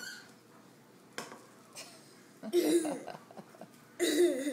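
A young child's voice: two short wordless vocal outbursts, one about two and a half seconds in and one near the end, with a light tap a little over a second in.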